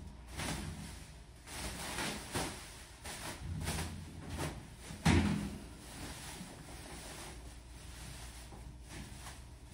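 Handling noise from unpacking and assembling a metal dog crate: rustling packaging and a series of knocks, the loudest about five seconds in, then it goes quieter.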